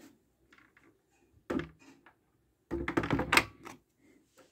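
Hard plastic knocks and clicks as the motor head of an Aura CleanMax water-filter vacuum is set back onto its stainless-steel water basin: one short knock about one and a half seconds in, then a second-long cluster of clunks and rattles near the three-second mark.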